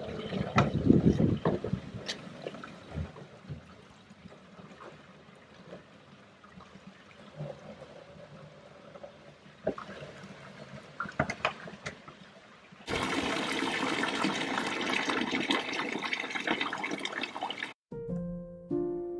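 Water from a stone fountain spout pouring into plastic water jugs, with scattered clicks and knocks of the jugs being handled. About thirteen seconds in, a louder steady rush of water filling begins and cuts off suddenly, and piano music starts near the end.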